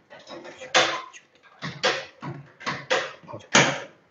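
Irregular knocks and clatter from hands working at a ramen noodle-making machine, a string of short sharp handling sounds, the loudest near the end.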